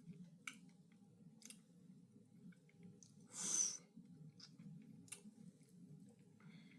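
Faint mouth sounds of a person chewing food, a few small wet clicks and smacks, with one short breathy hiss, a breath through the nose, about three and a half seconds in.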